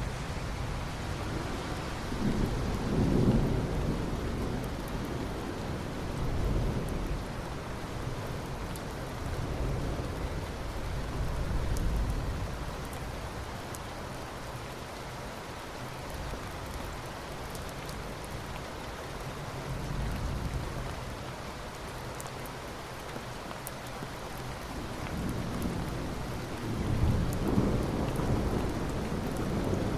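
Steady rain falling, with low rolling thunder rumbling in several slow swells, the strongest a few seconds in and near the end.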